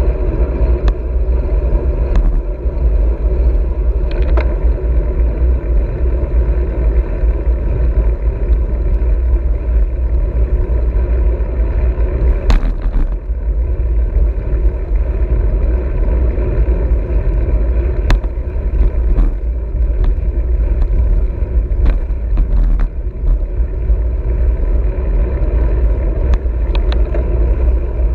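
Wind buffeting the microphone and tyre noise from a road bike riding at speed: a steady, loud low rumble. A few short knocks and clicks come through, the sharpest about twelve seconds in.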